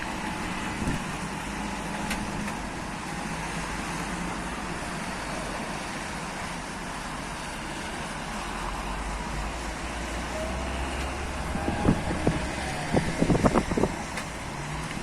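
Steady outdoor din of rain and road traffic: an even hiss over a low rumble, with a cluster of sharp knocks and clatter about twelve to fourteen seconds in.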